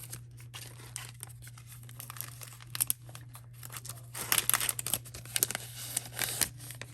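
Sticker packaging crinkling and crackling as it is handled and pulled open, with the loudest crackles between about four and six and a half seconds in.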